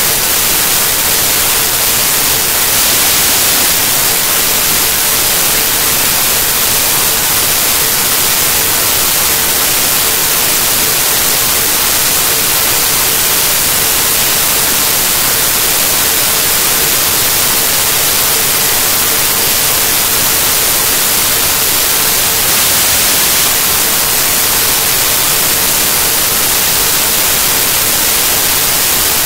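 Loud, steady static hiss, brightest in the high end, with a faint steady tone underneath.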